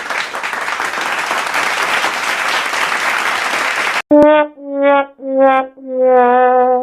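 A steady noisy hiss for about four seconds, then, after a click, the "sad trombone" sound effect: four descending trombone notes, the last one held long and wavering, the comic sound for a failure.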